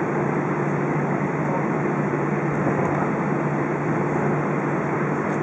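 Airbus A320 cabin noise heard from inside the cabin with the engines running at a steady setting: an even rushing sound over a constant low hum, with no rise or fall.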